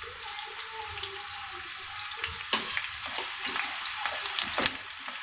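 Sliced onions sizzling and crackling as they fry in hot cooking oil in a non-stick pan, with a couple of sharper clicks as a spatula stirs them.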